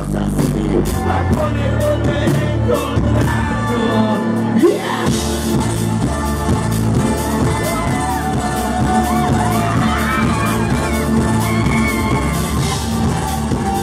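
Live band music with a steady drum beat, bass, acoustic guitar and accordion, and a voice singing over it.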